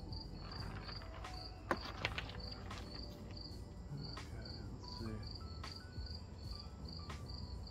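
A cricket chirping steadily, about two to three chirps a second, with a few sharp snips of pruning shears cutting juniper branches, the loudest about two seconds in.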